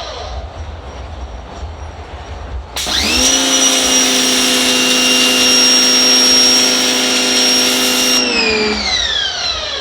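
Mechpro 2000 W electric pressure washer: the motor and pump start suddenly about three seconds in as the trigger is pulled, run steadily with the hiss of the water spray from the variable pattern nozzle for about five seconds, then wind down in a falling whine when the trigger is released.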